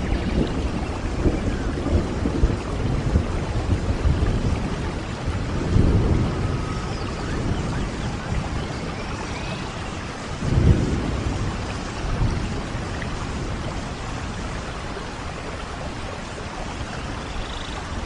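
Steady rain with rolling thunder, swelling into two heavier low rumbles about six and ten seconds in.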